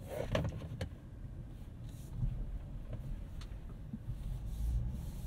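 Cabin sound of a Honda Passport TrailSport's 3.5 L V6 and tyres crawling over a rocky trail, the transmission held in a lower gear in sand mode: a steady low rumble with a few scattered knocks, most of them in the first second.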